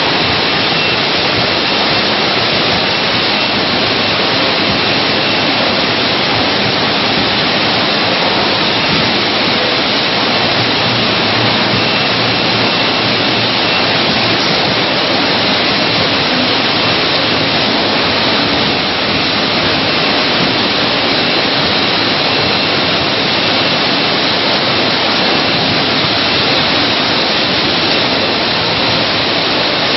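Steady machine noise of a running chocolate production and packing line: conveyor belts and horizontal flow-wrapping machines working together as one even, unbroken noise with no distinct beat.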